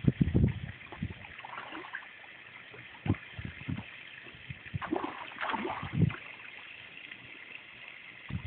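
Fish splashing and slurping at the pond surface in irregular bursts as they feed, with a cluster of splashes a little past the middle, over a steady high hiss.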